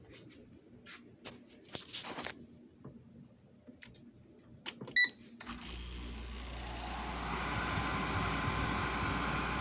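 Air conditioner starting up: a short electronic beep from its control panel about five seconds in, then the motor hum comes on and the fan noise builds steadily. Faint clicks before the beep.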